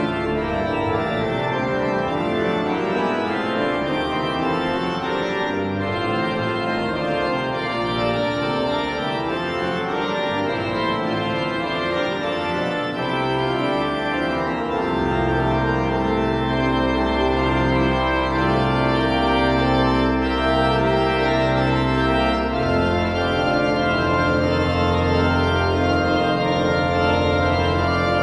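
1979 Brombaugh pipe organ playing a many-voiced fugue. About halfway through, long held pedal notes come in underneath and the sound grows a little louder; about three-quarters of the way through the pedal moves to another sustained low note.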